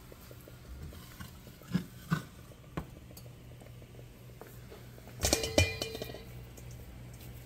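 Metal cookware being handled: a few light knocks, then about five seconds in a loud clatter of metal that rings briefly.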